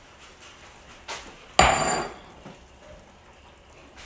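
A single sharp metallic clank of cookware about a second and a half in, ringing briefly, with a lighter knock just before it. Under it, a low steady hiss from a pot of water boiling on the stove.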